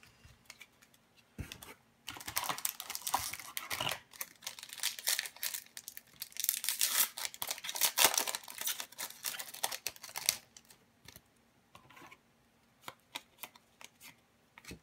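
Foil wrapper of an Upper Deck hockey card pack crinkling and tearing as it is opened, starting about two seconds in and stopping about ten seconds in. A few light clicks follow as the cards are handled.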